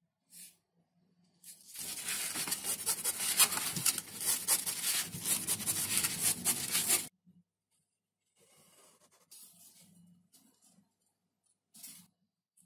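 Hobby knife drawn along a metal straightedge, slicing through an XPS (Depron) foam sheet with a dense, crackly scratching for about five seconds. It stops abruptly about seven seconds in, leaving faint rustling as the foam and a balsa strip are handled.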